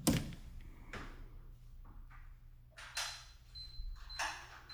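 Soldering work on a lithium-ion battery pack: a handful of short scrapes and light knocks about a second apart as a soldering iron and wires are handled over the cells, over a low steady hum.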